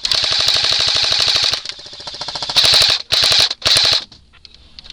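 Airsoft guns firing full-auto: a steady rapid burst of about a second and a half, fainter shots, then three short rapid bursts between about two and a half and four seconds in.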